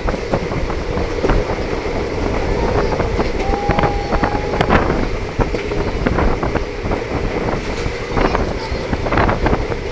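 Passenger train running at speed, heard from an open carriage window: the steady noise of wheels on the rails with many sharp clicks and rattles, and wind buffeting the microphone. A short thin tone sounds briefly near the middle.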